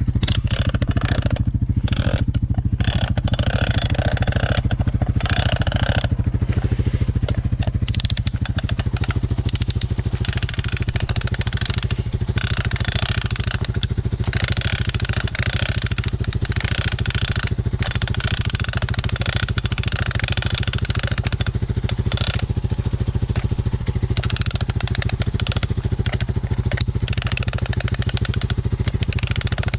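Four-wheeler (ATV) engine running at a steady, even pace, with no revving up or down.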